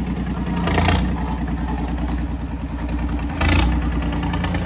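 Mahindra 265 DI tractor's three-cylinder diesel engine running steadily with an even low throb. Two short rushes of noise come over it, one about a second in and one about three and a half seconds in.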